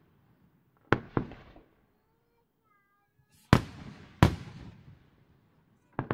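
Aerial firework shells bursting: two bangs in quick succession about a second in, another pair well under a second apart midway, and a fifth bang near the end, each trailing off in a fading rumble.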